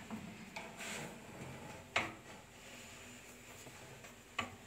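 Countertop electric oven door being handled and opened: a sharp click about two seconds in and another near the end, with a few softer knocks between.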